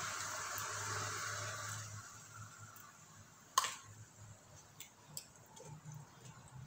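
A person eating by hand and chewing, with small wet mouth clicks and one sharp click about three and a half seconds in, after a steady hiss that fades out about two seconds in.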